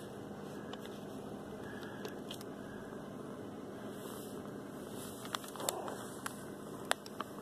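Cat fur rubbing against the phone's microphone: a steady soft rustle over a low hum, with a few sharp clicks in the last couple of seconds.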